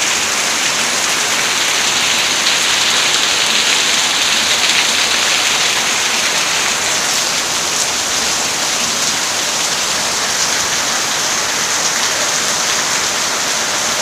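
Rain pouring down steadily: a loud, even hiss.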